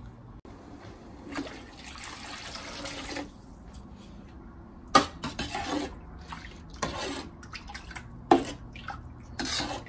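Water poured into a pan of tomato rasam, a couple of seconds of splashing, then a steel ladle stirring it with a few sharp clinks against the pan.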